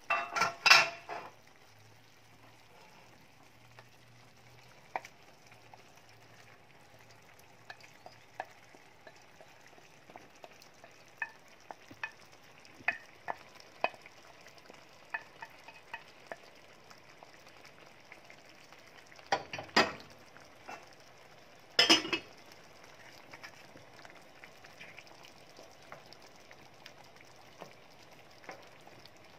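Wooden spoon stirring chicken into a simmering sauce in a stainless steel pan: scattered soft clicks and pops from the bubbling sauce and the spoon, with louder clattering scrapes at the start and twice about two-thirds of the way through.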